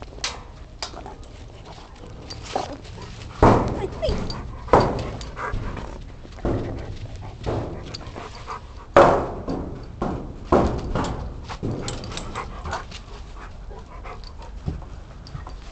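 A large dog close by, with a dozen or so sudden sharp sounds at irregular intervals, the loudest about three and a half, five and nine seconds in.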